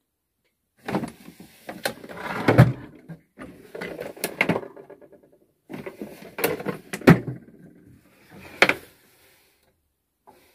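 Drawers of a metal tool chest sliding open and shut, with the tools inside clinking and knocking, in three spells of sliding and sharp knocks.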